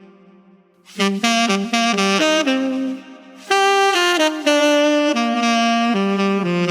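Solo saxophone playing an unaccompanied melody: after a second of quiet, a quick run of short notes, a brief pause, then longer held notes.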